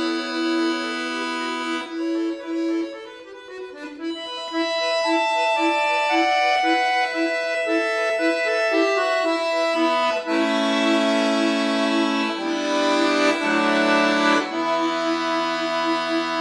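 Solo concert accordion playing a classical piece: a quickly repeated note pulses under a moving melody, with a softer passage about three seconds in. In the second half it swells into fuller chords over changing bass notes.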